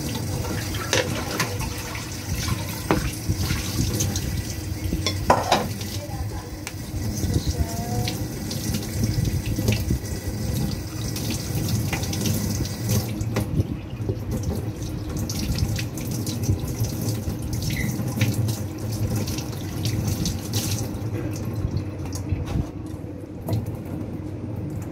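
Water running from a kitchen tap into a sink, steady throughout, with scattered light knocks and clinks.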